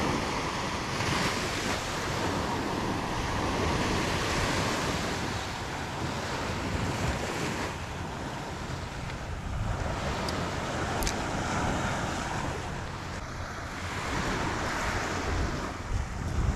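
Ocean surf breaking and washing up a beach, swelling and easing every few seconds, with wind noise on the microphone. A single brief click sounds about eleven seconds in.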